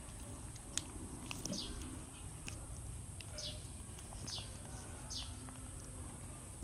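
A bird chirping repeatedly, short high calls that slide downward, about one a second, with faint small clicks between them.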